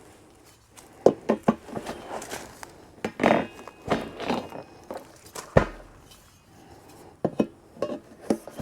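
Irregular clinks and knocks of metal deer-feeder parts being handled and fitted together by hand, with a short rattle about three seconds in and a duller thump a little after halfway.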